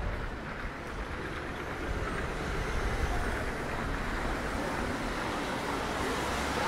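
City street ambience: a steady wash of traffic noise with a deep low rumble.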